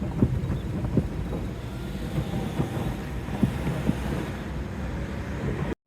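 Freight train rolling past, a steady low rumble with irregular knocks and clanks from the wheels and cars. It cuts off abruptly near the end.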